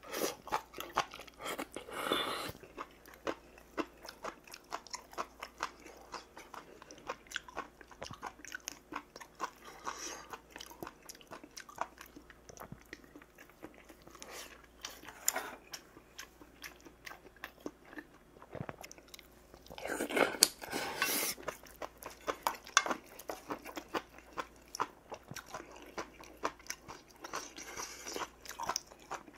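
A person eating close to the microphone: steady chewing with wet mouth clicks and crunches of rice and kimchi side dishes, with a few louder slurps, the longest about twenty seconds in.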